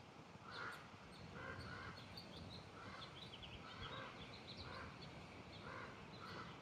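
Faint birdsong: one bird gives a call repeated about once a second while smaller birds chirp in quick high notes.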